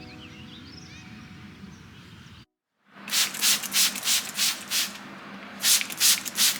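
Rhythmic rubbing strokes, about three a second, in two runs with a short pause between. Before them comes a faint steady background with faint high chirps, which cuts off abruptly.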